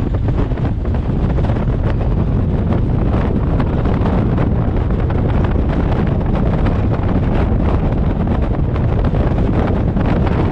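Heavy wind buffeting the microphone over a steady low rumble of a vehicle on the move, with constant crackling gusts.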